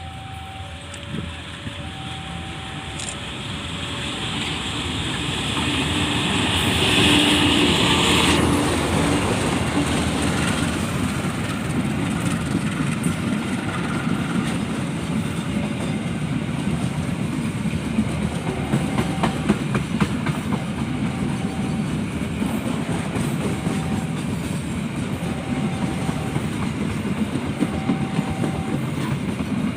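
A train passing close by: the sound builds to a loud peak about eight seconds in, where a hiss cuts off sharply, then the cars roll past with a steady rumble and the clicking of wheels over rail joints. Behind it, an alternating two-note warning tone repeats, typical of a level crossing alarm.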